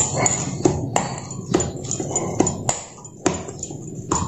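Hands kneading a ball of rested maida dough in a stainless steel bowl: a string of sharp knocks and taps, about two a second, as the dough and hands strike the metal bowl.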